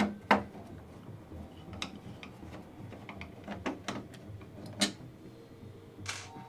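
Scattered light clicks and taps of a hex key and plastic parts as the AMS feeder is unscrewed from the Bambu Lab X1 Carbon's back panel. The clicks are loudest just after the start and again about five seconds in, with a short rustle near the end.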